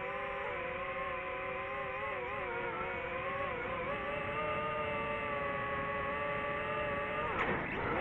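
Quadcopter drone's electric motors and propellers whining steadily, several tones at slightly different pitches. Near the end the pitch dips sharply and swings back up with a brief crackle as the throttle changes and the drone banks.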